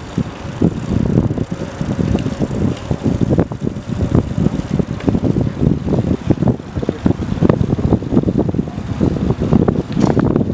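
Wind buffeting the microphone of a camera riding along on a bicycle: a loud, irregular low rumble with rapid flutter.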